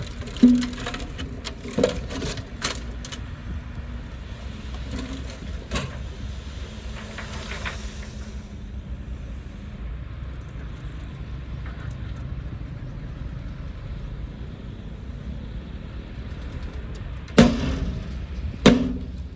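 Heavy diesel earthmoving machine, likely a bulldozer, running with a steady low rumble, broken by sharp knocks about half a second in, around two, three and six seconds in, and two louder ones near the end.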